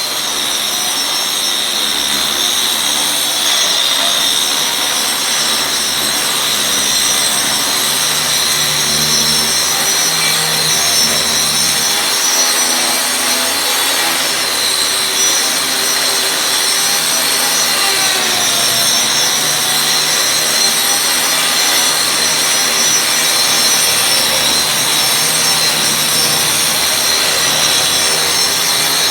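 Concrete grinder running steadily, grinding a concrete surface with a loud, hissing grinding noise; the pitch of the machine wavers a little as the load changes.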